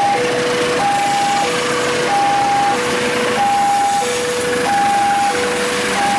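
Railway level-crossing warning alarm sounding a steady high-low two-tone, each note held about two-thirds of a second. Under it is the running noise of a KAI CC206 diesel locomotive and its container freight wagons passing.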